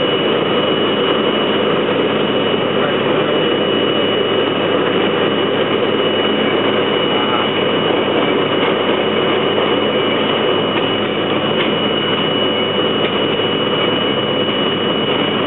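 R32 subway train running at speed through a tunnel: a steady, loud noise of motors and wheels on the rails, with a thin steady high tone over it and a few light clicks near the end.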